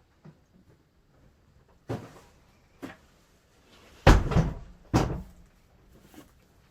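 A barn pen gate banging and knocking: four separate bangs, the heaviest about four seconds in and another a second later.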